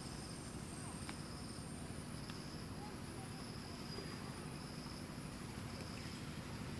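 Outdoor ambience: a steady low rumble, with insects chirring high in a band that swells and fades every second or so, and a few faint clicks.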